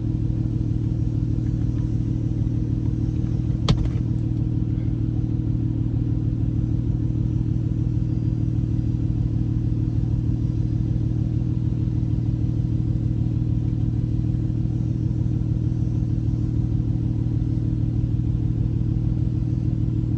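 A car's engine running at a steady, unchanging speed with a low drone. About four seconds in there is a single sharp click.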